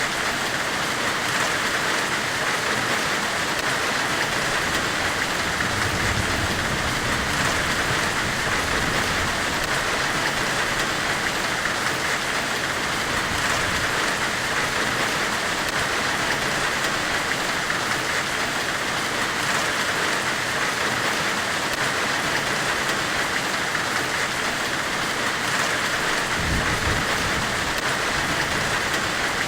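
Steady, even white-noise hiss, like the hiss of a forge weld, with a low rumble that swells briefly about six seconds in and again near the end.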